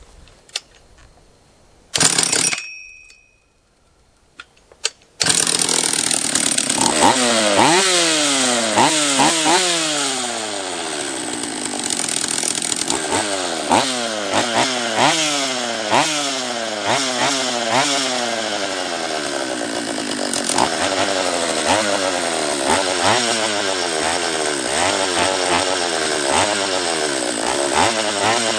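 Husqvarna 44 chainsaw's small two-stroke engine: a short burst about two seconds in, then it catches about five seconds in and keeps running, its pitch surging up and sagging back down over and over. It is running on a carburettor whose mixture has just been turned leaner after it ran rich.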